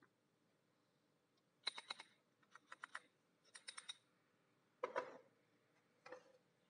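Three quick runs of small, sharp metallic clicks as a chrome handlebar bar-end weight is handled and turned on its threaded bolt. About five seconds in comes a duller knock as the assembled balancer bar is set down on a table, followed by a softer knock about a second later.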